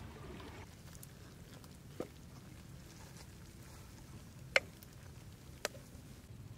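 A metal ladle clinking against a wok of braised chicken: four short, sharp clinks, the loudest about halfway through. Flowing stream water fades out about half a second in.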